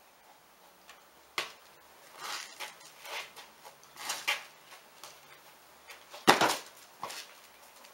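A few sharp knocks and scuffs from a dog's soccer-ball game, the loudest a little over six seconds in.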